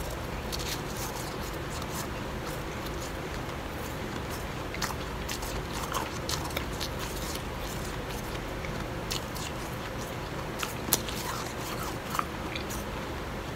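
Chewing a mouthful of blended bag ice: crunching with many scattered sharp crackles, one louder crack about eleven seconds in.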